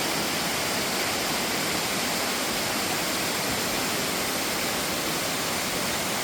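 Bidulginang Falls pouring into its pool, a loud, steady rush of falling water.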